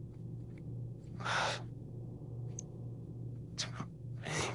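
A person's breathing between lines: a long sigh about a second in, then a quick breath and another breath out near the end, over a steady low hum.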